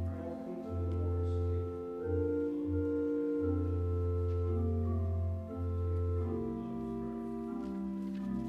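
Organ playing slow, sustained chords over a held low bass note.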